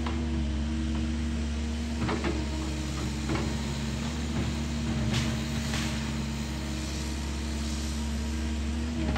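Cat excavator's diesel engine running steadily under load as it works, with a few short sharp knocks about two, three and five seconds in.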